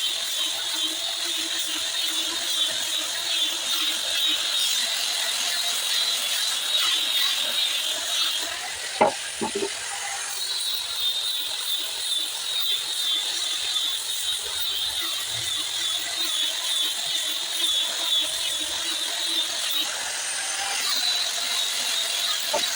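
A tool working wood with a steady mechanical noise. It stops briefly about nine seconds in, with a sharp knock, then starts again, and it dips once more about twenty seconds in.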